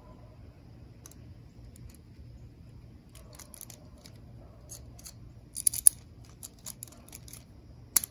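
Two plastic-and-metal Beyblade Burst tops, Shelter Regulus and Arc Bahamut, handled in the hands and turned over. They make scattered small plastic clicks and clacks, with a few sharp ones a little past halfway and again just before the end.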